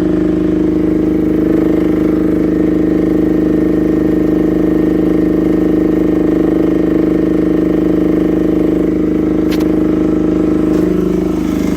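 Small 1-tonne diesel excavator's engine running steadily under load as the machine is worked.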